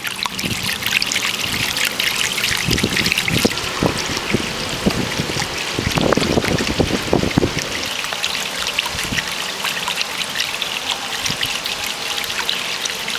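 Water trickling and splashing over pebbles in a baptismal font, spilling from one basin into the next. The splashing is heavier in the middle.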